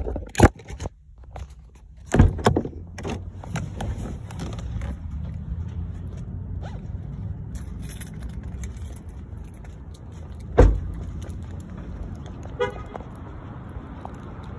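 Getting out of a parked car: knocks and clicks as the door opens, steady outdoor noise, a car door slammed shut about ten seconds in, then a short horn chirp as the car is locked.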